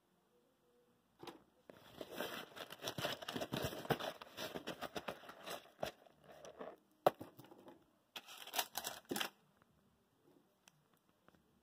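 Rustling and crinkling as braided modular power-supply cables and their packaging are handled: a long crackly stretch of about five seconds, a sharp click about seven seconds in, then a shorter burst of rustling.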